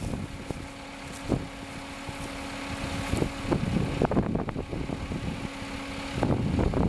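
A self-propelled swather's engine idling steadily, with irregular low rumbles over it that are heaviest about three to four and a half seconds in and again near the end.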